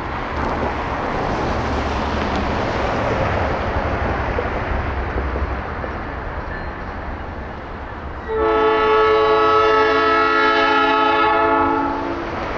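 Rumble and rail noise of a train, then about eight seconds in a locomotive air horn sounds one long steady blast of about four seconds that stops shortly before the end.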